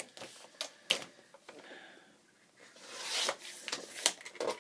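Paper handled with a few light clicks and taps, then the sliding blade of a Fiskars paper trimmer drawn once along its rail, slicing the paper in a hiss just under a second long, followed by a few more clicks.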